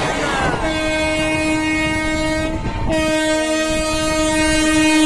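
Indian Railways locomotive horn sounding two long steady blasts with a short break between them, over the rushing noise of a train running at speed on the track.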